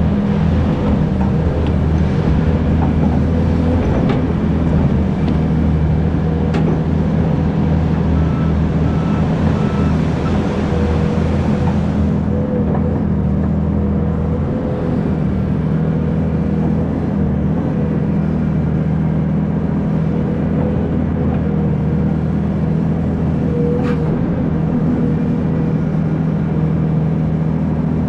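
Hydraulic excavator's diesel engine running steadily at working revs, with a few sharp knocks. The higher hissing part of the sound falls away about halfway through.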